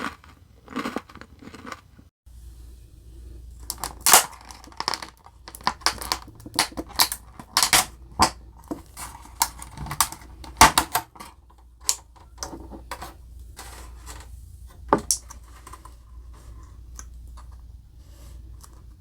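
Close-miked eating and food-handling sounds: an irregular run of sharp clicks, taps and crackles, thinning out near the end.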